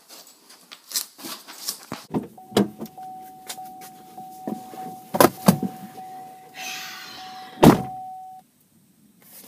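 A car's interior warning chime sounds as one steady tone with knocks and thumps of someone getting into the passenger seat. A car door slams shut about three quarters of the way through, the loudest sound, and the chime stops shortly after.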